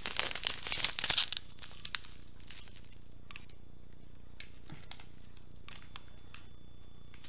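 Plastic packaging crinkling as a bag of diamond-painting drills is handled: a dense rustle for about the first second and a half, then scattered short crinkles and light clicks.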